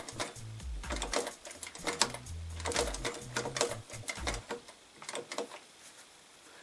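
Electric sewing machine stitching a denim jeans hem slowly in short runs, starting and stopping, with the needle ticking rapidly through the folded fabric. It falls quiet about five seconds in.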